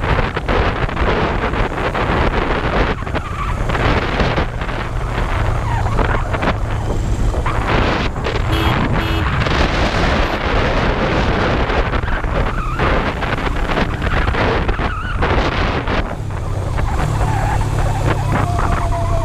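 Kawasaki GPz250 Belt Drive's parallel-twin engine running under way, largely covered by wind rushing over the microphone. Near the end the wind eases and the engine's low hum comes through more clearly.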